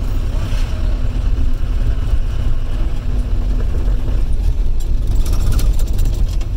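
Taxi's engine and road noise heard from inside the cabin while driving, a steady low rumble, with a few faint clicks after about four and a half seconds.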